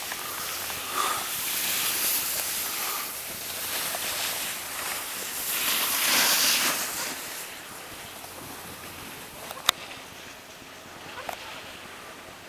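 Skis hissing and scraping over snow through a run of turns, the noise swelling with each turn, with wind on the microphone; it drops away after about seven seconds, and a couple of sharp clicks come near the end.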